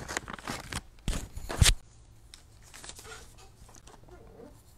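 Rustling and a quick run of knocks as the pencil and sketchbook are handled, the loudest knock about a second and a half in. After that, faint pencil strokes on paper.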